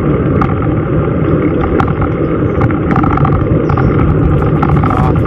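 Wind buffeting the microphone of a camera carried on a moving bicycle, a loud, steady rumble.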